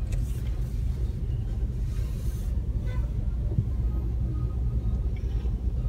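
Steady low rumble of a car driving along a city street, engine and tyre noise, with a short rush of hiss about two seconds in.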